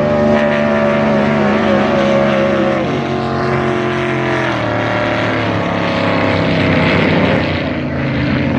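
Racing boat engine running loudly at high revs, its pitch dropping twice, about three seconds and again about four and a half seconds in.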